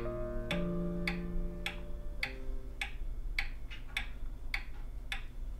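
Pendulum wall clock ticking steadily, a little under two ticks a second. A few held notes of music sound under the ticking and die away about two seconds in.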